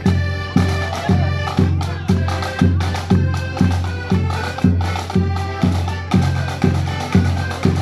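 Piano accordion band playing a march tune together, with a steady low drum beat about twice a second.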